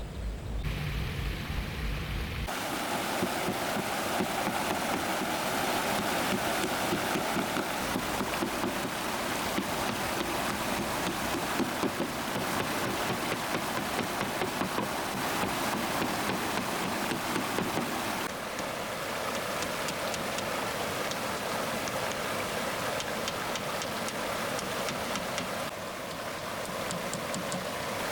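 Steady rushing water noise, changing in character abruptly a few times, at about two seconds in, about two-thirds of the way through and near the end.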